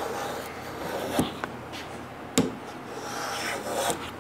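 Wooden pieces rubbing and scraping against each other or the bench in a few swells, with several sharp knocks of wood on wood.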